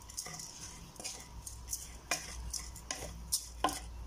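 A hand stirring and rubbing uncooked rice grains in a pot, giving irregular rustles and small clicks of grain against the sides.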